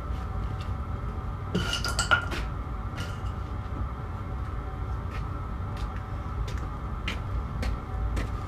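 Metal tools or parts clinking and ringing, a cluster of sharp clinks about two seconds in and lighter ticks later, over a steady low rumble.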